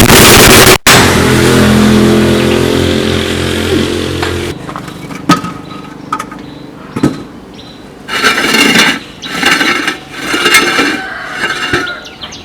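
Air impact wrench rattling loudly, cutting off less than a second in. A motor hum then fades away over a few seconds, and several short bursts of buzzing tool noise follow near the end.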